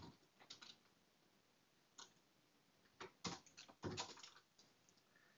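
A few faint, scattered computer keyboard keystrokes, with a small cluster of them about three to four seconds in.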